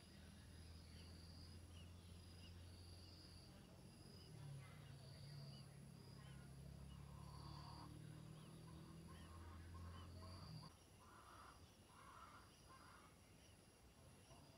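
Near silence: a low steady hum that cuts off about ten and a half seconds in, with faint high chirps over it.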